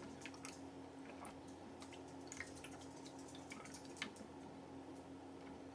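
Faint scattered drips and light clicks of water and handling, over a steady low hum.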